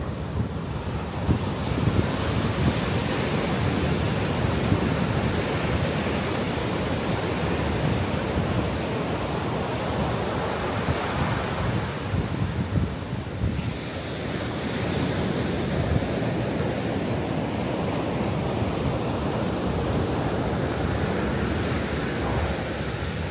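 Ocean surf breaking and washing up a sandy beach in a continuous wash that swells and eases. Wind buffets the microphone, adding a low rumble.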